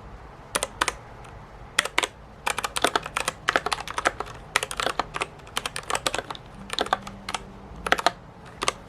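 Typing on a Royal Kludge RK68 mechanical keyboard with brown switches: irregular keystroke clicks, a few scattered taps at first, then a fast run of typing from about two and a half seconds in, easing to a few taps near the end.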